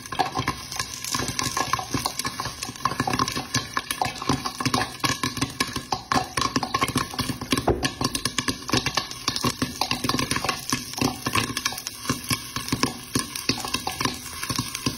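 Popcorn kernels popping rapidly in a covered wok: a dense, continuous patter of sharp pops and knocks under a glass lid.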